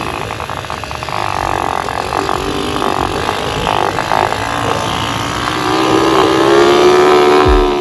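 Engine of a small off-road vehicle running as it drives along a dirt track, its pitch climbing from about two-thirds of the way in as it pulls uphill.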